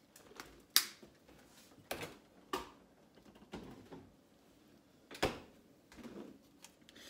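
Sharp clicks and knocks of kitchen utensils and containers handled on a counter while mixing dough, about six at irregular intervals, the loudest about three-quarters of a second in.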